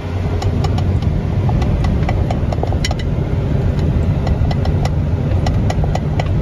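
Engine and road noise inside a car's cabin, a steady low rumble, with irregular light clicks and ticks over it.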